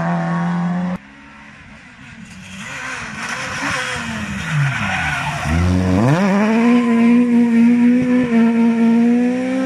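Peugeot 208 rally car engine approaching at speed. Its note falls as the car slows for the corner, then climbs sharply and holds high as it accelerates away. Before that, another rally car's engine holds a steady note for about a second and is cut off.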